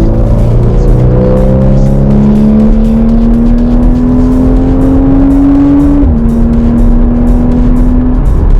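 Car engine pulling steadily, its pitch climbing slowly for about six seconds, then dropping a little as if on an upshift and holding steady. Background music with a steady beat plays over it.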